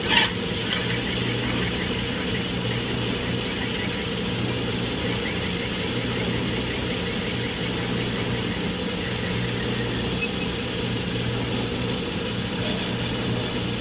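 Clausing manual metal lathe running with a steady mechanical hum, with one sharp click right at the start.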